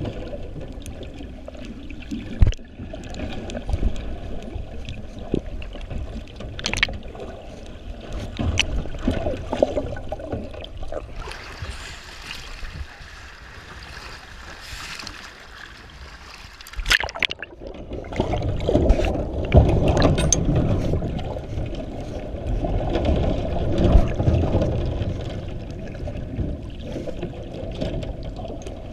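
Water heard through an underwater camera in a metal shark cage: a muffled low rush with scattered sharp knocks. Partway through the camera is above the surface and waves splash and hiss, then about 17 seconds in it plunges back under and the heavy muffled rush returns.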